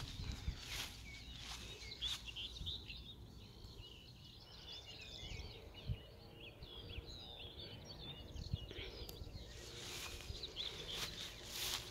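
Small birds chirping and singing in many short, rapid calls over a low rumble of wind on the microphone, with a few brief noisy gusts near the start and near the end.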